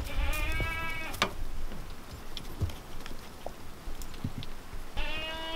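A goat bleating twice, each call about a second long: one at the start and one near the end. It is the doe yelling, which the owner takes to mean she is in heat and calling for a buck.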